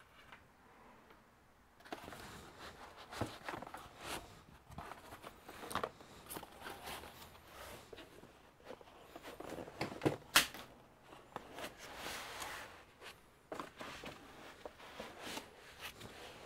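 Cardboard packaging being handled: a laptop's inner cardboard box lifted out of its shipping carton and foam packing, with scraping and rustling of cardboard from about two seconds in and a sharp knock about ten seconds in.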